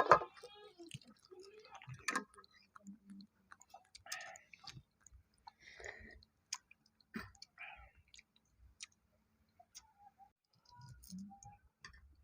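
Chewing and small wet mouth sounds from people eating balut, the boiled duck egg with its embryo, with scattered light clicks throughout.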